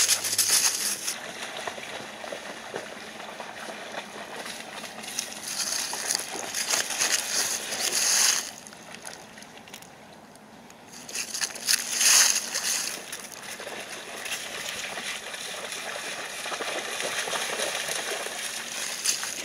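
Golden retrievers splashing and sloshing as they wade and run through shallow river water. The splashing dips briefly about halfway through, then is loudest just after.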